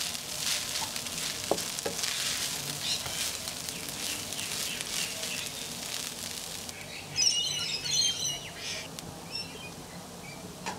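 Fried rice sizzling in a wok while a wooden spatula scrapes and tosses it, with a couple of light knocks. About seven seconds in, the stirring stops and the frying quietens, and a few short, high chirps stand out.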